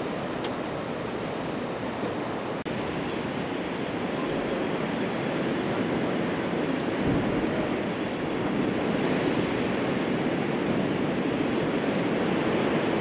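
Sea surf washing against a rocky shore: a steady rush of waves, with some wind on the microphone, growing a little louder about halfway through.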